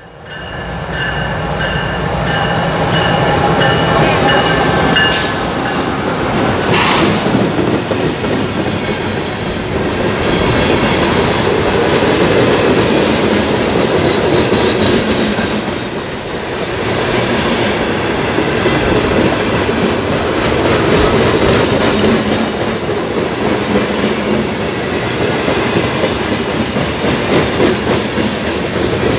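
CSX freight train passing close by, growing loud in the first two seconds as it arrives. Then a long string of open-top hopper cars rolls past, their wheels clattering steadily over the rails.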